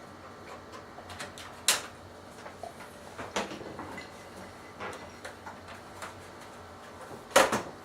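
Scattered plastic clicks and knocks as a Toshiba Satellite P755 laptop is handled and its battery taken out, with two louder knocks, one a little under two seconds in and one near the end.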